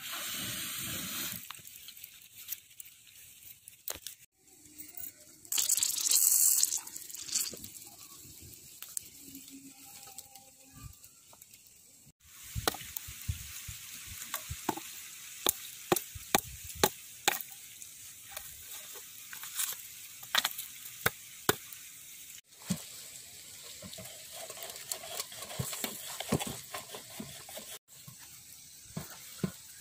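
Wood embers and fire-roasted coconuts crackling, with many sharp, irregular pops and a faint sizzle.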